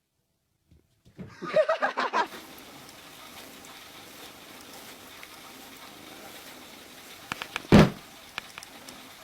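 A short burst of voice-like cries, then steady background hiss with a few clicks and one loud thump near the end.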